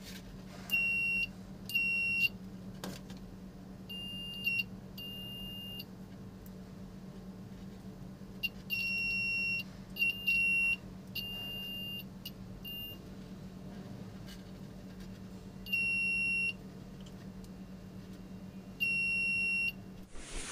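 Small buzzer on a homemade continuity tester beeping in short, irregularly spaced bursts, about ten in all, each half a second to a second long, one steady high tone. Each beep marks the test probes closing the circuit, touched together or across a resistor's leads.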